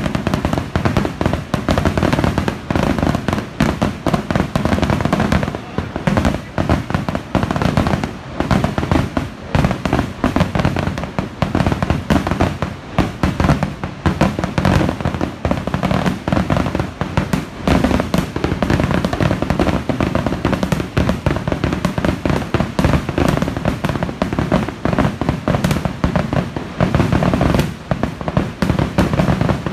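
Massed firework display going off as a near-continuous barrage: many sharp bangs and cracks a second, overlapping with no pauses.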